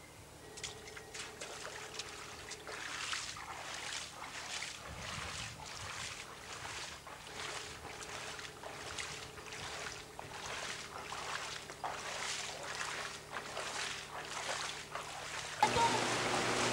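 Rubber boots wading through shallow floodwater: steady sloshing footsteps, about two a second. Near the end a louder, steady sound cuts in.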